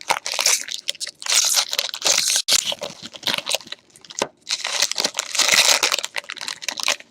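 Card packaging crinkling and tearing in irregular bursts with short pauses, as a sealed trading-card box and its wrapper are torn open.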